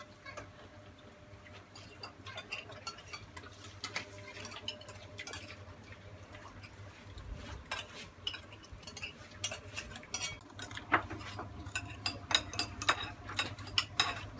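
Spoons and utensils clinking against bowls and dishes in scattered light taps, coming more often near the end, over a steady low hum.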